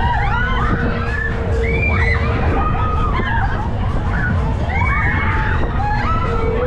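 Riders on a spinning Sizzler fairground ride shrieking and whooping, over a heavy low rumble of wind buffeting the microphone as the car whirls round.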